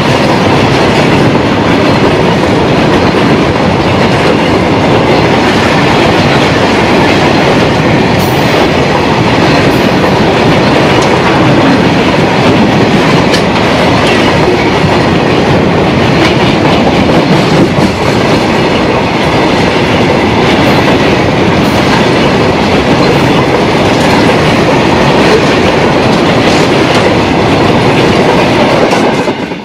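Covered freight wagons of a goods train rolling past close by: a steady, loud rumble and clatter of steel wheels on the rails.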